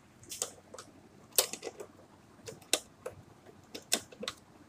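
Irregular sharp metallic clicks and taps of pliers working a nut tight on the earth-wire connection inside a sheet-metal fluorescent light fitting, with the loudest click about a second and a half in.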